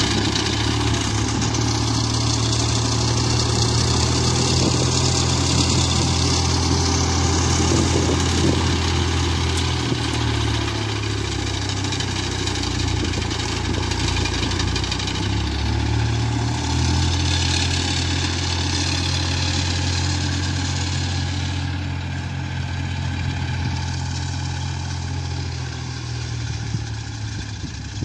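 Fiatagri 60-66 tractor's three-cylinder Iveco diesel engine running steadily while it drives its sickle bar mower through standing crop, gradually fading in the last few seconds as the tractor moves off.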